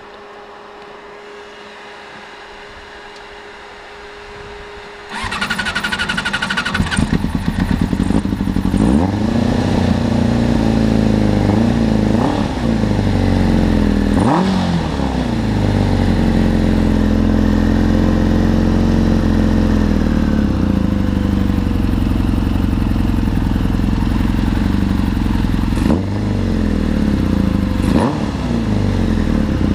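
A faint steady whine, then about five seconds in the buggy's Suzuki 600 cc inline-four motorcycle engine cranks and catches. It settles into a steady idle, blipped up and back down several times.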